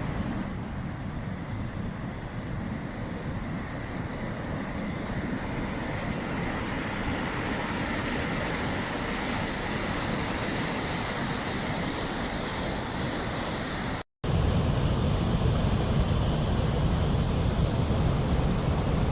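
Steady rushing of a waterfall, an even hiss of falling water. About 14 s in it cuts out for a moment, then returns louder and deeper.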